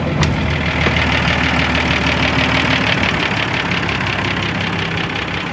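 Ursus 1224 tractor's six-cylinder diesel engine idling steadily.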